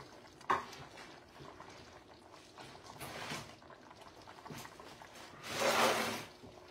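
Grated Parmesan cheese being poured into a pot of soup: one short pouring rush near the end, after a single light click about half a second in.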